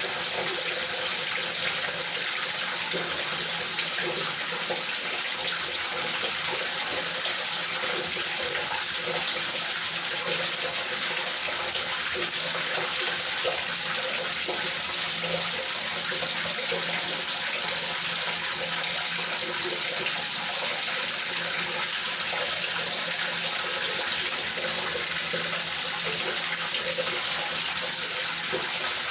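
Steady rain falling, an even hiss that does not change and has no thunder.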